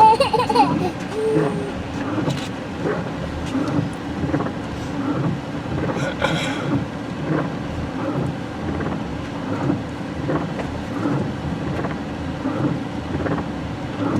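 Safari vehicle running in heavy rain: a steady low hum with scattered taps throughout, and a brief hiss about six seconds in.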